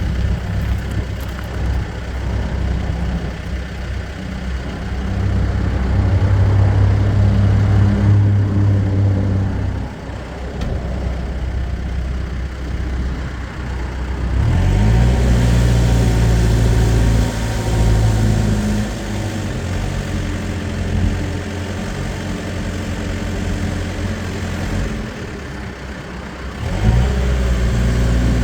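Case 590 Super M Series 3 backhoe loader's diesel engine running, its speed rising sharply about halfway through and again near the end.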